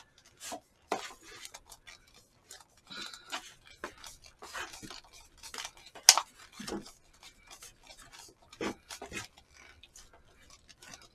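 Scattered light clicks and scrapes of chopsticks and a spoon working through food in a paperboard takeout box, with takeout containers being handled. One sharper click comes about six seconds in.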